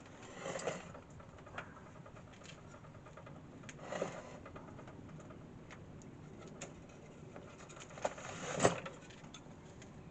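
Workbench handling noises over a low steady hiss: a few sharp clicks, and three brief scraping or rustling sounds, near the start, about four seconds in and about eight and a half seconds in, the last the loudest.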